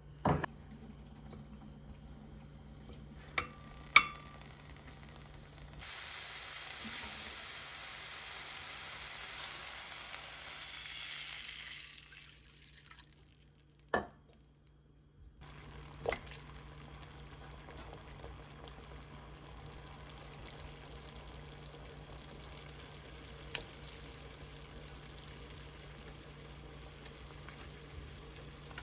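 Food frying in a pan. A loud sizzle starts about six seconds in and dies away after a few seconds, and a quieter steady sizzle returns later. A few sharp clicks are heard along the way.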